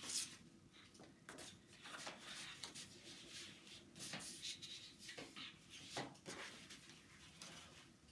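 Sheets of scrapbook paper being handled and slid across a tabletop: a string of soft, brief rustles, the sharpest right at the start.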